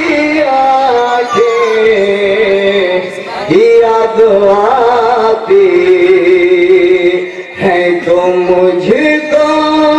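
A man sings a naat (Urdu devotional poem) into a microphone in long, drawn-out, melismatic notes that glide in pitch, with short breaks about 3 and 7.5 seconds in.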